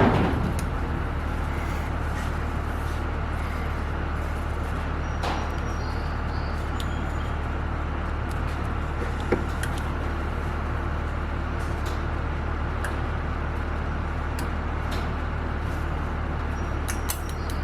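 A steady low machine hum, with a loud knock at the very start, a sharp thump about nine seconds in, and a few faint clicks.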